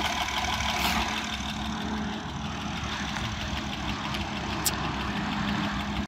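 A 2008 Honda Accord's 3.5-litre V6 idling steadily with a loud ticking that the owner cannot explain. One suggestion he has found is that the valves need adjusting.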